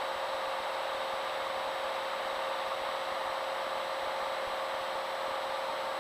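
Steady drone of a single-engine light airplane's engine and propeller in flight, heard in the cockpit: an even hiss with a constant hum, unchanging throughout.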